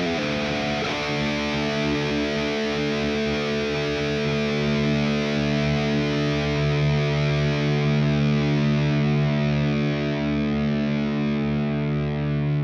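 Outro music: a single distorted electric guitar chord held and left ringing, its brightness slowly fading.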